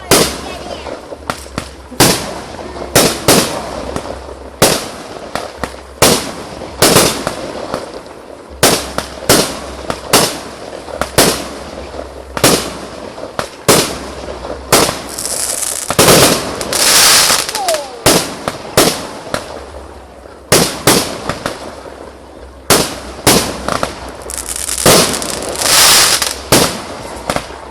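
Aerial fireworks bursting overhead in a quick series of loud bangs, about one or two a second, with stretches of crackling from glitter shells about halfway through and again near the end.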